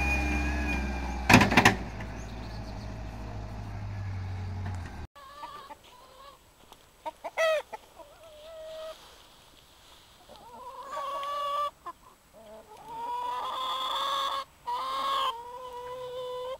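Schaeff wheel loader's engine running, with a loud clatter about a second and a half in; the sound cuts off suddenly about five seconds in. After that come quieter, drawn-out pitched calls with short breaks, like birds.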